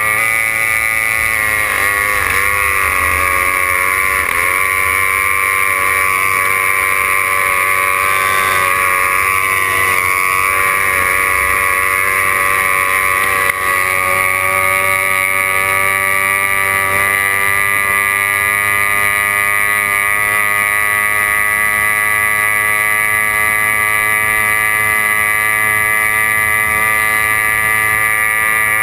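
C-class racing hydroplane's engine running at high revs while the boat is underway, a loud, steady drone. Its pitch dips and recovers a few seconds in, then holds steady.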